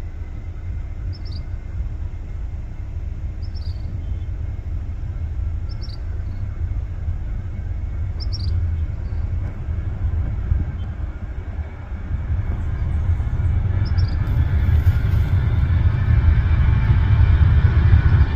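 Boeing 737-800's CFM56 jet engines running as the airliner rolls along the runway, a low rumble that grows steadily louder in the last third as the jet draws nearer. A short high chirp repeats about every two seconds over the first two-thirds.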